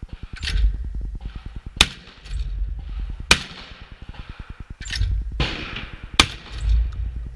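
Beretta A400 semi-automatic shotgun firing at clay targets: several sharp shots, one every second or two, with a low rumble between them.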